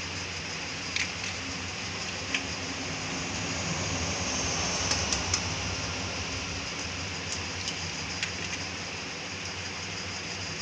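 Spiced water boiling in a steel kadai on a gas stove: a steady bubbling hiss that swells a little about halfway through, with a few short sharp clicks scattered through it.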